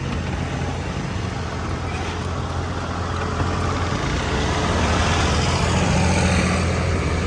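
Road traffic: a steady low engine hum, with a motor vehicle passing close by that swells louder from about halfway through and eases near the end.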